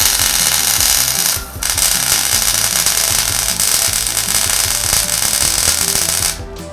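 Electric arc welding on a motorcycle frame: the steady crackling hiss of the arc, broken for an instant about a second and a half in, then running again and cutting off shortly before the end.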